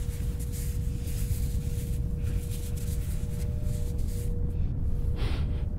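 A low, steady droning rumble with a faint held tone underneath, over soft rustling of fabric handled in the fingers. About five seconds in comes one sharp breath drawn in through the nose as the fabric is held to the face.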